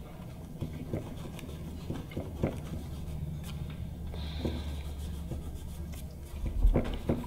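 Fingertips rubbing dried masking fluid off watercolour paper: soft, scratchy rubbing with small ticks over a low steady hum. A couple of dull low thumps come near the end.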